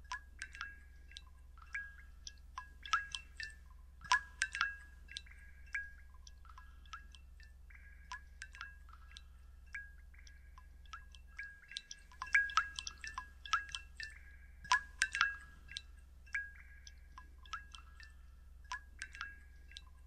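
Water dripping irregularly: faint sharp drops, each with a short ringing ping, now sparse, now in quick clusters, over a steady low hum.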